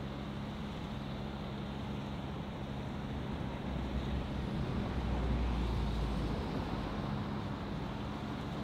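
Diesel engine idling with a steady hum. A low rumble swells for a few seconds in the middle, then eases back.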